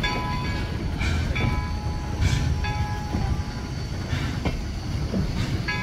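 Steam locomotive NCRR #17, a 4-4-0, starting a train away slowly: sharp exhaust chuffs about once a second over a low rumble. A ringing tone sounds over it in spells.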